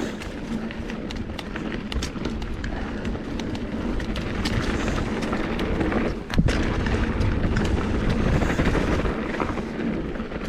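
Mountain bike descending a loose, dusty dirt trail: a steady rumble of tyres over dirt and rock with wind on the helmet microphone, and frequent sharp clicks and rattles from the bike.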